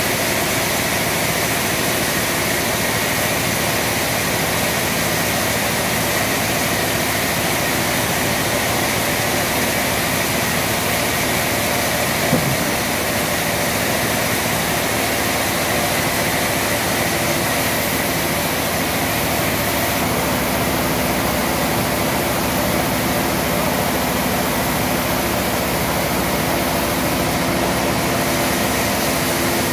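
Large log band sawmill running steadily without cutting: a constant machine hum and hiss. One brief, louder falling sound comes about twelve seconds in.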